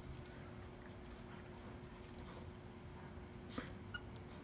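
Dog chewing and tugging at a rope toy on grass: faint scattered clicks and rustles, over a faint steady hum.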